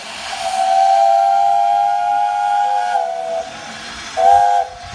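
Steam whistle blowing with a hiss of steam: one long blast of about three seconds whose pitch sags slightly as it ends, then a short second toot near the end.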